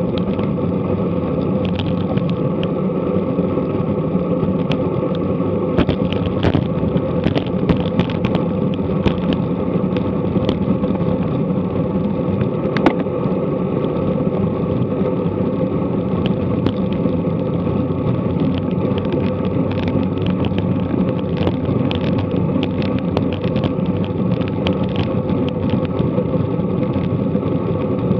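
Steady wind and road-bike tyre noise while riding in a group at about 20 mph, picked up by an action camera's microphone, with scattered short clicks and knocks.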